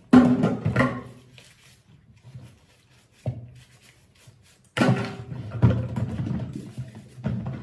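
A plastic baby bottle being scrubbed with a bottle brush and handled at a stainless steel sink: rubbing and scraping with knocks against the sink, a sudden knock about three seconds in, and a longer bout of scrubbing near the end.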